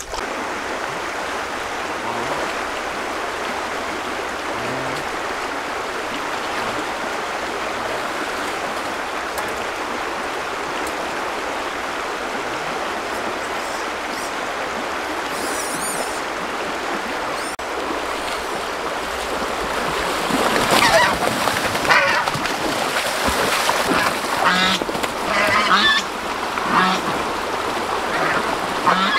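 Stream water running steadily. About twenty seconds in, geese start honking, with repeated wavering calls over the water.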